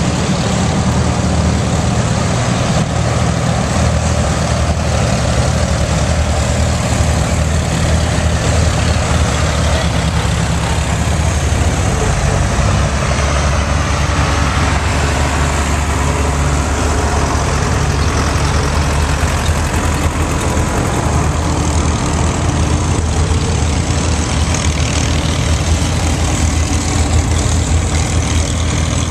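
Several antique farm tractors, among them a John Deere two-cylinder, driving past one after another with their engines running in a steady low rumble.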